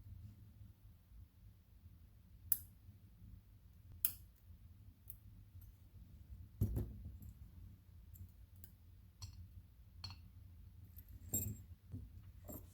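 Scattered small clicks and taps as the pins and tools of a gutted Mako 427 padlock are handled while its key pins are worked out. The clicks come a few seconds apart, with the loudest knock about two thirds of the way through.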